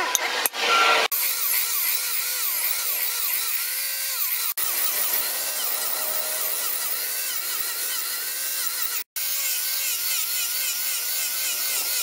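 Electric angle grinder fitted with a foam sanding pad, running steadily as it sands a wooden hammer handle, its whine wavering up and down in pitch. A louder, clattery noise fills the first second before the grinder sound takes over, and the sound drops out for an instant about three quarters of the way in.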